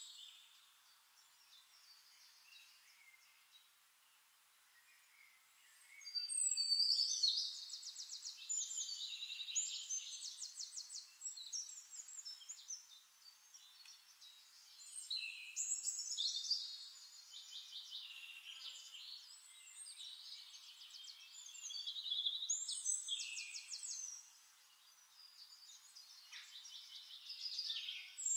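Birdsong: phrases of high, rapid trills and chirps every few seconds, starting about six seconds in.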